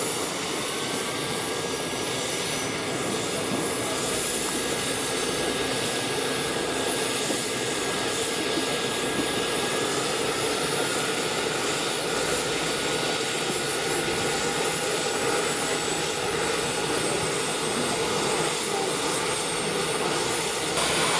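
Radio-controlled scale model helicopter flying, its engine and rotors making a steady, even sound with thin high whines that drift slowly in pitch.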